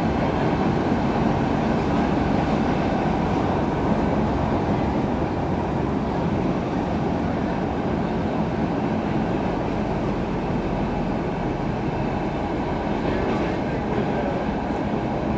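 Stockholm Metro C6 subway car running steadily, heard from inside the carriage: an even rumble of wheels on track and running gear.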